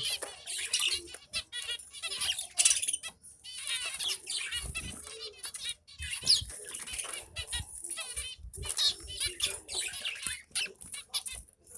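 Zebra finches calling in quick succession, many short nasal chirps overlapping one another, with some wing flutters among them.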